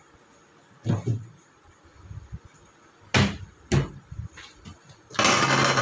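Objects handled at a desk: a dull knock about a second in, two sharp knocks about half a second apart, then a short rough scrape near the end.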